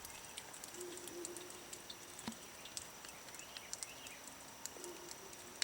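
Faint outdoor ambience: scattered small clicks and ticks, with a few faint chirps and a faint held call twice.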